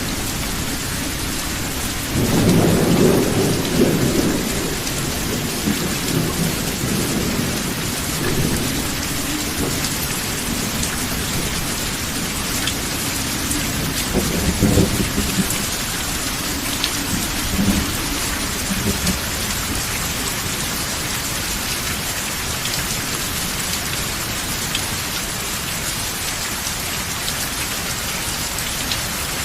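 Steady rain falling, with rolling thunder: a deep rumble about two seconds in, another around halfway through, and a few fainter rumbles after it.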